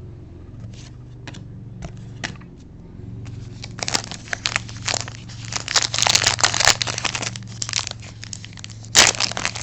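Trading card pack wrapper being handled, with a few light clicks and then crinkling and tearing from about three and a half seconds in, which comes again near the end.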